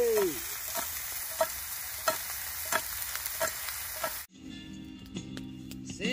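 Steak and asparagus sizzling in a frying pan over campfire embers: a steady hiss with sharp spitting pops every half second or so. The sizzle cuts off suddenly about four seconds in.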